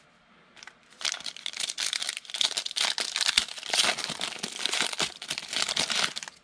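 Wrapper of a 2019 Score football card pack being torn open and crinkled by hand, starting about a second in and stopping suddenly just before the end as the cards come out.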